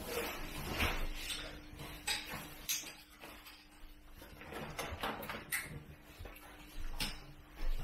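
Scattered small clicks, knocks and rustles of camping gear being handled and packed, over a faint steady hum.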